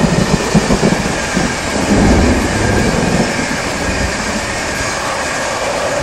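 An electric express passenger train, an InterCity 225 set, passing at speed in heavy rain: a steady rolling rumble of wheels on rail, heaviest about two seconds in. A humming whine comes in near the end as the locomotive at the rear goes by.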